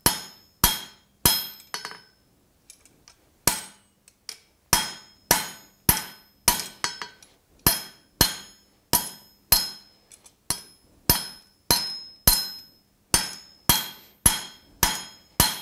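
Hand hammer blows on red-hot steel on an anvil, each with a short bright ring, about three every two seconds. The hot bar is being flattened and drawn out to form the boss of flat jaw tongs. The blows stop for about two seconds after the first three, then resume at a steady pace.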